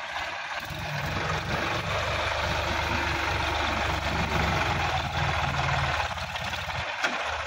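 Sonalika DI-50 RX tractor's diesel engine running steadily as the tractor pulls up out of deep mud onto the bank. The engine note comes in about a second in and drops away briefly near the end.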